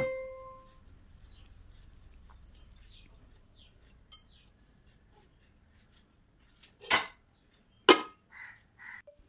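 A brief ringing tone that fades out within the first second, then faint background with a few faint bird chirps, and two short, loud, sharp sounds about seven and eight seconds in.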